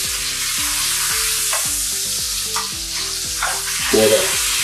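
Steak frying in a pan of hot butter with garlic and rosemary: a steady sizzle.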